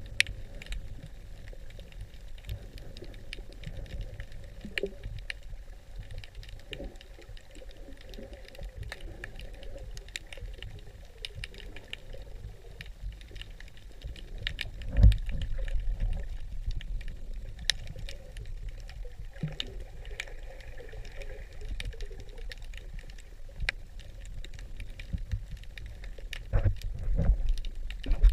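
Underwater ambience: a steady low rumble of moving water with many scattered sharp clicks and crackles. A louder knock comes about fifteen seconds in, and a few more near the end.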